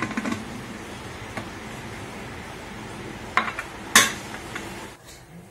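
Aluminium Prestige Deluxe pressure cooker lid knocking and clanking as it is gripped and unlocked to open the cooker after cooking. A few light knocks at the start, more about three and a half seconds in, and the loudest sharp metal clank about four seconds in, over a steady hiss.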